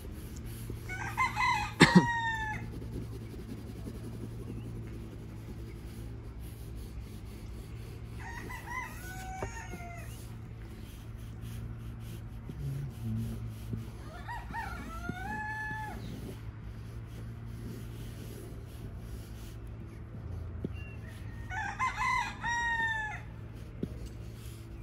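Rooster crowing four times, several seconds apart, each crow a string of notes ending in a long drawn-out note. A sharp knock comes near the end of the first crow.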